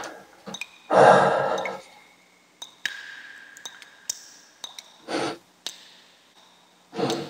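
A man breathing out hard: one long, loud sigh about a second in that fades away, then shorter breaths near five seconds and near the end.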